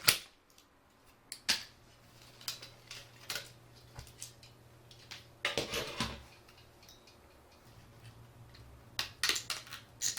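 Clicks, snaps and taps of plastic and metal parts being handled during an LCD monitor teardown, with a rougher scraping crackle about five and a half seconds in and a quick run of clicks near the end. A faint low hum sits underneath.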